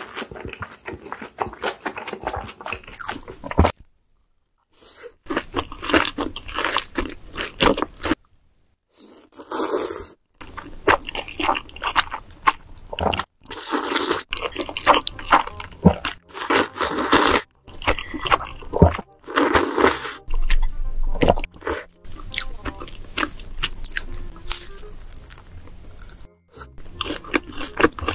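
Close-miked eating sounds: crisp fried chicken crunching and wet chewing, in dense runs of crackles and smacks broken by several short silent gaps.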